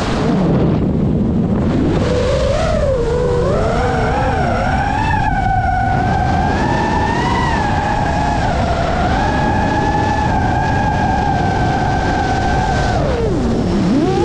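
FPV racing quadcopter's motors whining, the pitch steady for long stretches. It drops low just after the start and again near the end as the throttle is cut, then climbs back as the power comes on.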